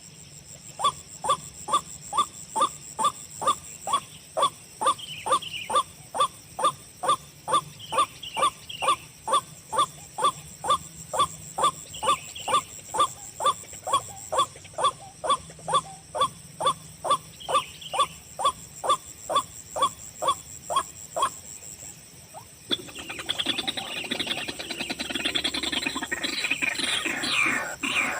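White-breasted waterhen (ruak-ruak) call: short harsh notes repeated steadily, about two to three a second, stopping about 21 seconds in. After a short pause, a dense, rough jumble of sound takes over for the last few seconds.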